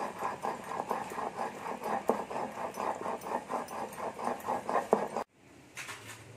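Hands rubbing salt and turmeric into raw hilsa fish pieces, a quick even run of soft wet slaps, about four or five a second, which cuts off suddenly near the end.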